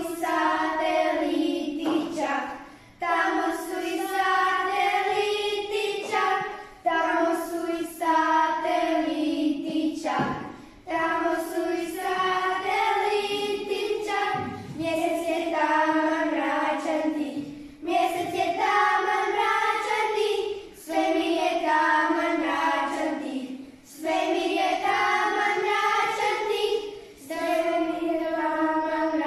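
A small group of children singing together, phrase after phrase with short pauses between the phrases.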